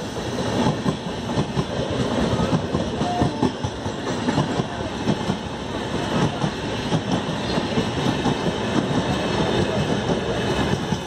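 A train of LHB passenger coaches passing close by on the adjacent track, its wheels clattering quickly and irregularly over rail joints. This mixes with the running noise of the moving train it is heard from, through an open door.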